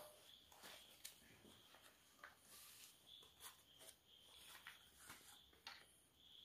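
Near silence: room tone with a few faint, scattered clicks and rustles.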